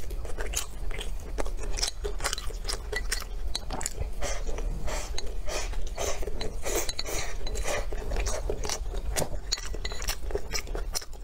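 Close-up chewing of a mouthful of rice and meat, with many quick wet mouth clicks. Wooden chopsticks scrape and tap against a porcelain plate as more rice is picked up.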